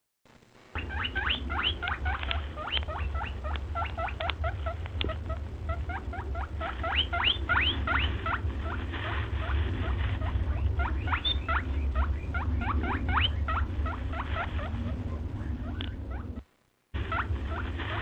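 A small animal squeaking in rapid series of short, sharply rising squeaks, several a second, over a steady low hum. The squeaking breaks off briefly near the start and again shortly before the end.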